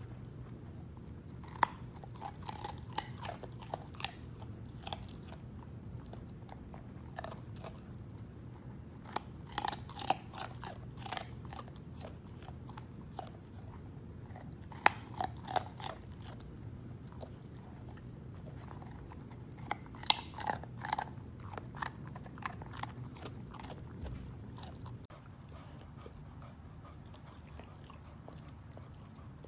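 Yellow Labrador Retriever puppy crunching on a raw carrot: clusters of crisp, sharp bites with pauses between them, stopping about 25 seconds in.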